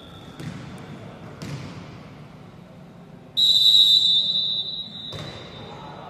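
Referee's whistle blown in one loud, steady blast about three and a half seconds in, lasting a second or two. A few thuds of a volleyball being struck come before it and one just after, ringing in a large gym.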